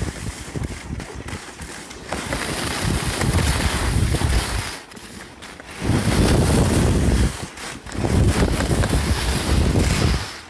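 Wind buffeting a body-worn smartphone's microphone during a downhill ski run, a rumble that rises and falls in gusts and drops away for about a second around the middle, over the hiss of skis on groomed snow.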